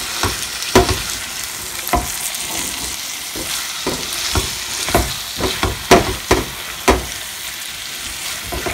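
Marinated chicken and onions sizzling in a hot non-stick pan while a slotted spatula stirs them, knocking and scraping against the pan at irregular intervals over a steady frying hiss.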